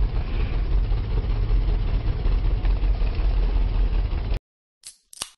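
ATV engine idling steadily with a low rumble, cutting off suddenly about four seconds in; two short clicks follow near the end.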